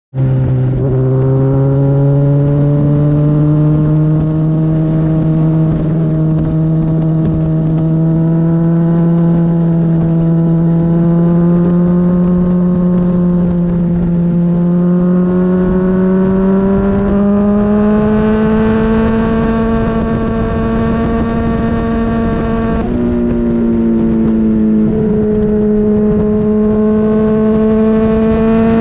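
Honda CBR600RR's inline-four engine running at a steady, held note whose pitch climbs slowly, with a brief break and small drop in pitch about 23 seconds in.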